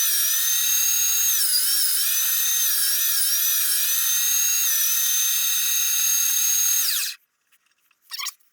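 STX Turboforce electric meat grinder's motor running with a steady high whine, its pitch dipping a little now and then as it grinds venison. About seven seconds in it is switched off and the whine falls away quickly.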